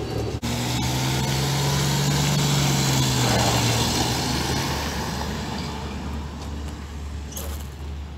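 Nissan Civilian bus engine running as the bus drives away on a brake test after a rear brake job. Its steady engine note fades about five seconds in, leaving a rush of wind on the microphone.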